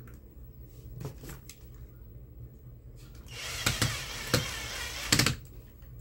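A small screw being driven in by hand to fix the fan's hanging capacitor: a few light handling clicks, then about two seconds of scraping with several sharp clicks about halfway through.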